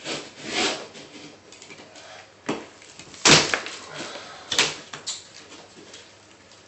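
Drywall being broken out by hand: gypsum board cracking and crunching as pieces snap off and the paper facing tears, with crumbs falling. A handful of sharp cracks, the loudest about halfway through.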